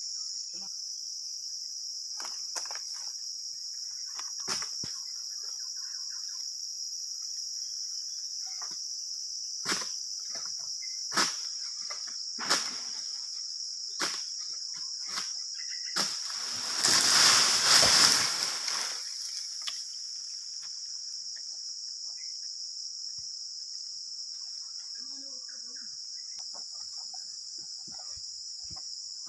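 Steady high-pitched insect drone, with a long-pole harvesting sickle working at the crown of a tall oil palm: about eight sharp knocks, and a little past the middle a loud rustling rush lasting about three seconds.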